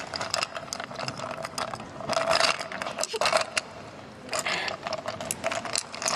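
Ice cubes in a glass clinking against each other and the glass as they are stirred with a thin stirrer, close to a binaural dummy-head microphone: a quick, uneven run of many small clinks.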